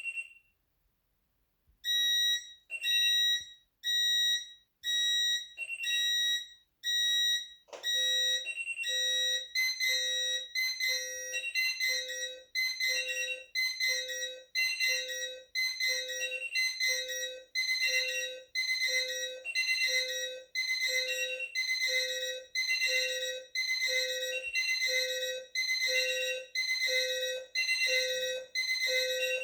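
Several electronic alarm clocks beeping together. A single high beep sounds about once a second at first, and from about eight seconds in a lower-pitched alarm joins, the beeps overlapping into a dense, busy pattern.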